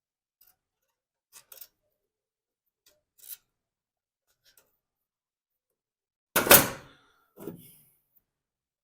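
Small metal parts and hand tools handled on a workbench while a clamp goes onto the engine's vent tube: a few faint clicks, then a loud clunk about six and a half seconds in and a softer one a second later.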